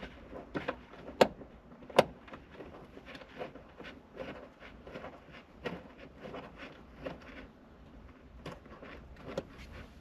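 Scattered small metallic clicks and knocks as the accelerator pedal's mounting bolts are fitted by hand. Two sharper knocks come about a second and two seconds in.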